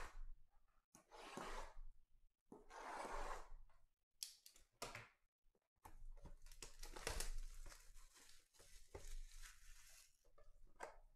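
Plastic shrink wrap being torn and crinkled off a trading-card hobby box, in a few separate rips at first and then a longer stretch of crinkling through the second half.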